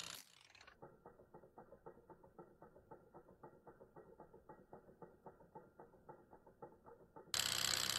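A small hot-air Stirling engine running: its mechanism ticks softly and evenly, about six times a second. Near the end a much louder steady running noise suddenly takes over.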